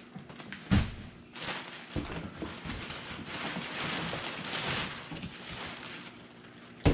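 Black plastic garbage bag rustling as hands rummage through it, with a few knocks and thumps: a loud one about a second in, another soon after, and a sharp knock at the very end as a cardboard box is handled.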